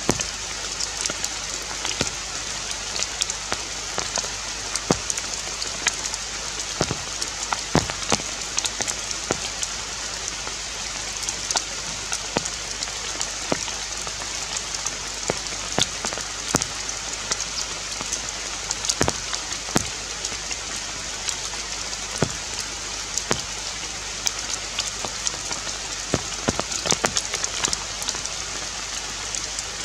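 Steady hiss of forest ambience with irregular ticks and taps scattered throughout, like drops falling on leaves.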